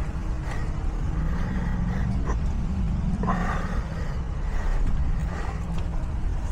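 Steady low rumble of a running vehicle, with a few light clicks and knocks.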